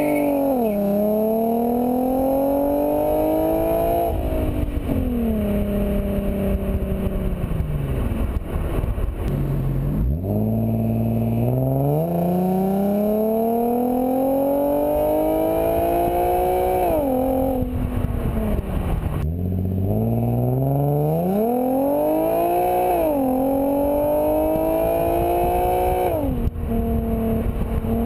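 Infiniti G37S 3.7-litre V6 exhaust through Stillen high-flow cats and a Stillen catback, pulling hard through the gears three times. The pitch climbs steadily and drops at each upshift, sinks back between pulls, and settles to a steady cruise near the end.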